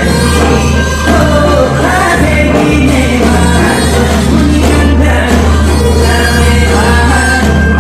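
Gayageum ensemble music with singing, loud and continuous over a steady bass line.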